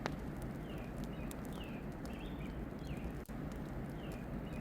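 Short, high, falling chirps from a small animal, likely a bird or frog, repeating every half second or so, often in pairs, over a steady low outdoor background.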